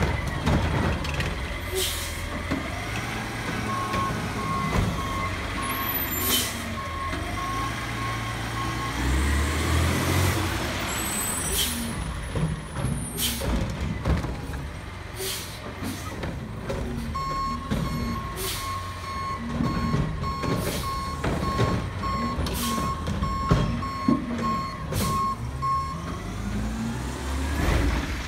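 Heil automated side-loader garbage truck working: its diesel engine runs throughout, with repeated sharp hisses and clanks from the air system and the lifting arm. A back-up alarm beeps steadily in two runs of several seconds, one in the first third and a longer one through much of the second half.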